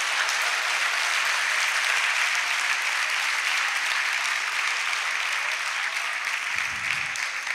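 A large audience applauding steadily in an auditorium, a dense, even clapping right after a punchline.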